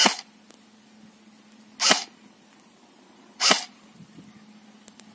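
A&K M4 airsoft rifle firing single shots: three short, sharp cracks about a second and a half apart.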